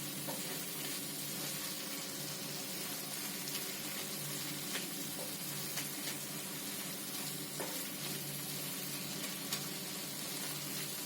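A tomato and onion bhaji sizzles steadily on a hot tawa while a spatula stirs it, with a few light clicks of the spatula against the pan.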